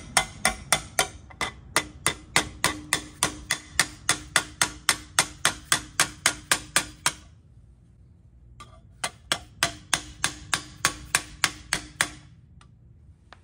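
A hammer tapping rapidly on a steel plate laid over a new rear axle seal, driving the seal into a Toyota 4Runner's rear axle housing. The taps are even, about three or four a second, each with a faint metallic ring. They pause for about two seconds past the middle, then resume and stop a little before the end.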